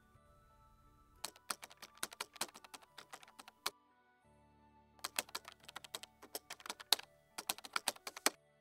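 Computer keyboard typing sound effect: two quick runs of key clicks, the second starting about five seconds in, as on-screen text is typed out, over faint background music.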